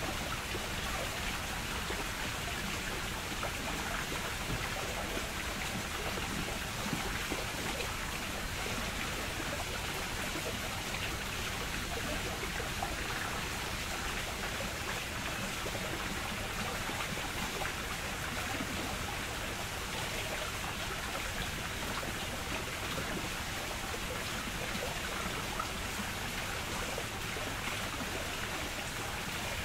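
Running water, a steady rushing and trickling that never pauses.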